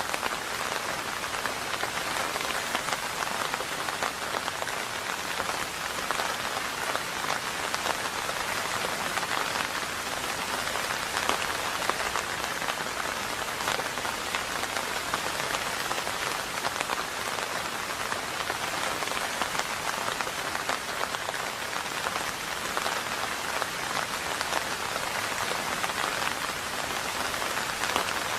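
Steady rain, an even patter of drops with no thunder.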